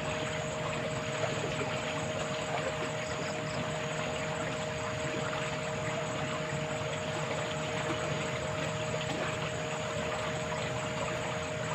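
Steady rush of flowing water with a constant two-note hum underneath, unchanging throughout.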